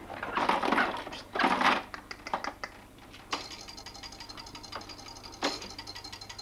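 Fast, even mechanical clicking, like a small ratchet or winding mechanism, starting about three seconds in and running steadily with a few sharper clicks. It follows two short, louder bursts of noise in the first two seconds.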